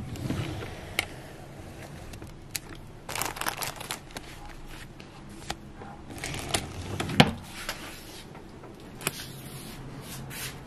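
Red paper angpao envelopes being handled, rustling and crinkling, with scattered clicks and taps from fingers on the paper.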